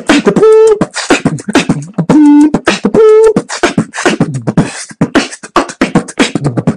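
Beatboxing: a quick rhythm of mouth-made drum sounds with short held hummed notes, a lower note stepping up to a higher one, twice in the first few seconds, then dense percussion.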